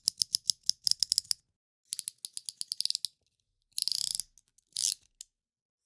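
Cutter knife (snap-off utility knife) with its blade slider clicking notch by notch. There are two runs of rapid clicks, then two short scraping strokes and a last click.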